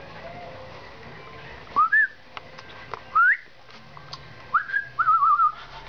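A person whistling: three short rising whistles, then a quick warbling whistle near the end.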